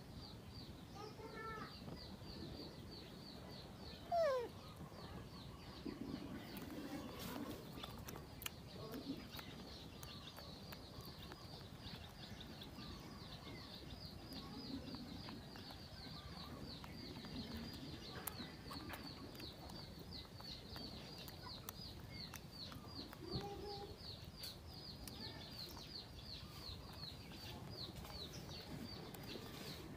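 Yard ambience: chickens clucking now and then, with one loud short falling call about four seconds in, over a steady high rapid chirping.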